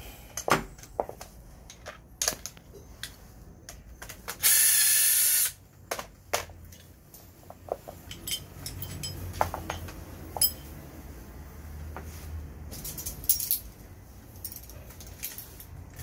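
Scattered metallic clicks and clinks of a scooter's front brake caliper and pads being handled and fitted, with a wrench on the caliper bolt near the end. A loud hiss lasting about a second cuts in about four and a half seconds in.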